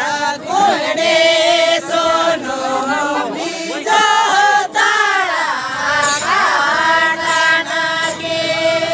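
A group of voices singing a traditional Santali song together in a chanting style, the melody rising and falling, with one long held note near the end.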